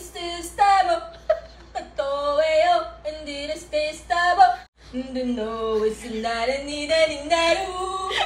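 A woman singing a melody in sustained phrases into an electric stand fan, with a brief pause a little past halfway.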